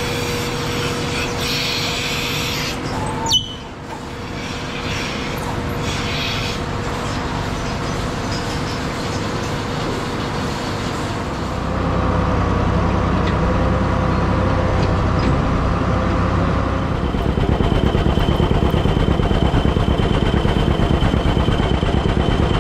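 Farm machinery running in a series of short clips. First a steady machine hum in a dairy barn during milking. About twelve seconds in, a heavier, lower-pitched machine takes over. In the last few seconds an old tractor engine runs with a fast, even beat as it is driven.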